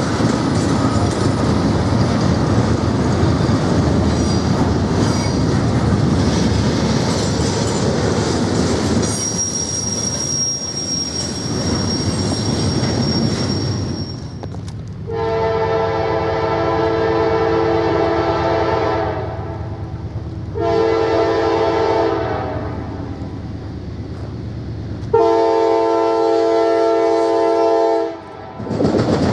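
Long train of tank cars rolling past with steady wheel and rail noise and a thin high squeal. Then a CSX diesel locomotive's air horn sounds in separate blasts as it approaches: a long one, a short one, another long one, and a fourth starting at the very end.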